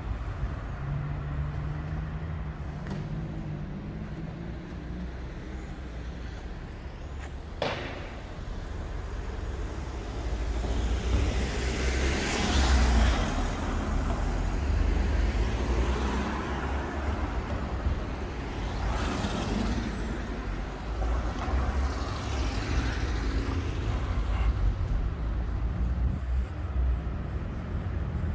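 Road traffic on a city street: motor vehicles passing, with a low engine rumble and a tyre hiss that swells and fades as each one goes by, loudest about halfway through. A single sharp click comes about eight seconds in.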